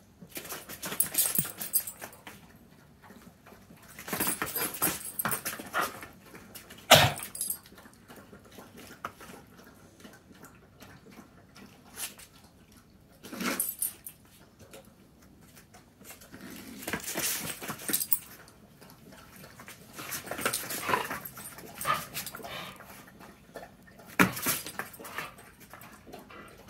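Two dogs play-fighting on a concrete floor: bursts of scuffling and jostling every few seconds, with short breaks between them. The loudest moment is a sharp knock about seven seconds in.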